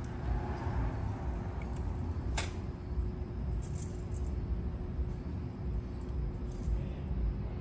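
A bunch of keys jangling in short bursts, about halfway through and again near the end, with a sharp click a couple of seconds in. Underneath is a steady low rumble with a faint steady hum.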